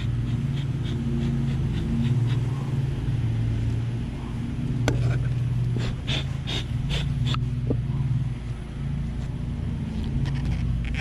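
Bee smoker bellows puffing over a low, steady hum of honeybees, with a few sharp clicks and knocks about halfway through as the hive is opened.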